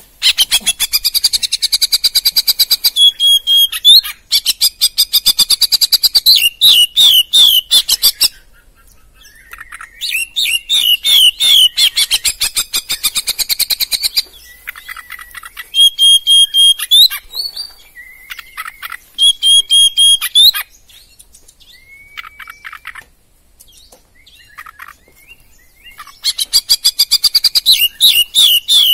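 Oriental magpie-robin (kacer) singing loud phrases of rapid, repeated notes, broken by a few short pauses and a longer quieter stretch near the middle.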